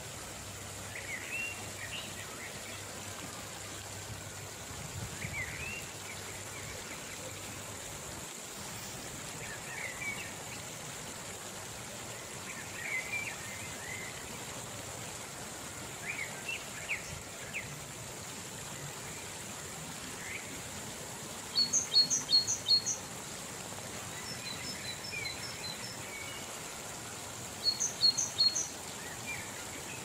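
Mountain river rapids rushing steadily over rocks, with small birds chirping every few seconds. About two-thirds of the way through, and again near the end, a bird gives a loud, quick series of high chirps, the loudest sounds here.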